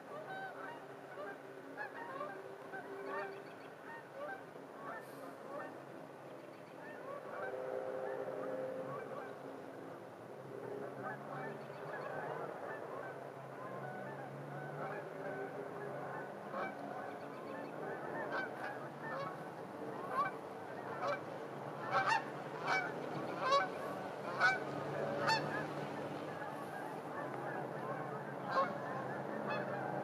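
A flock of geese honking, many calls overlapping without pause, with a run of louder, sharper honks in the last third.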